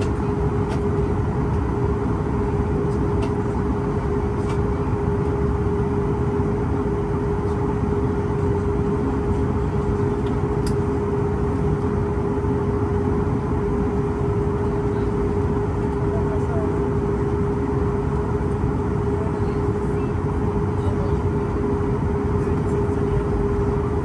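Cabin noise of a Boeing 737 MAX 8 on the ground with its CFM LEAP-1B engines at idle while it taxis slowly: a steady rushing hum with one constant mid-pitched tone.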